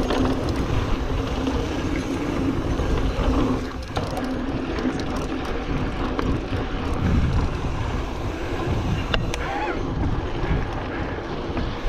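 2021 Giant Trance X mountain bike rolling down a dirt trail: the tyres rumble on packed dirt and gravel and the bike rattles over bumps, with wind buffeting the microphone. A few sharp clicks come near the end.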